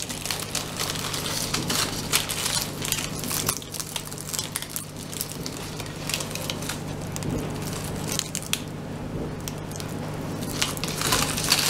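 Crisp, flaky baked Sivas katmer being torn apart by hand, its thin layers crackling and tearing in many small irregular crackles, loudest near the end.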